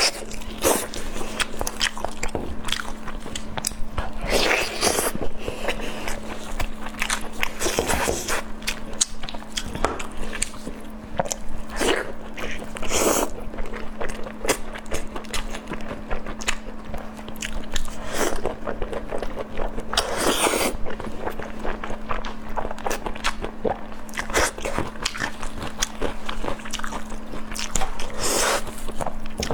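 Close-miked eating of hand-held lamb chops: irregular loud bites, tearing and chewing, with a steady low hum underneath.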